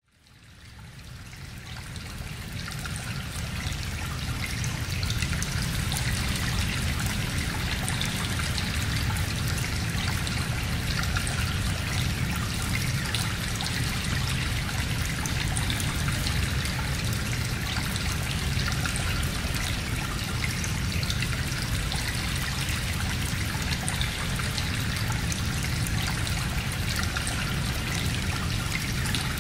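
Steady sound of running water, fading in over the first few seconds and then holding even.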